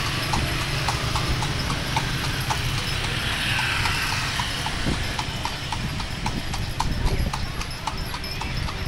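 A carriage horse's hooves clip-clopping at a steady walk on a paved street, about three hoof-beats a second, over a steady low rumble.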